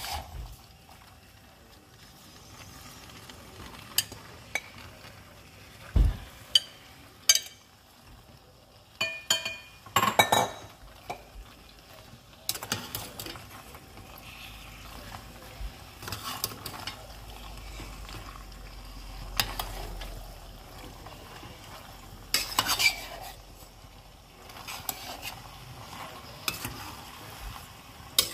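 A utensil stirring pasta through creamy alfredo sauce in a pan, scraping, with a dozen or so sharp knocks and clinks of the utensil against the pan.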